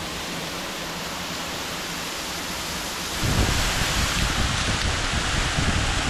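Water of the Momo-o Waterfall, a 23 m fall, pouring down a rock face and splashing below: a steady rush that grows louder about three seconds in.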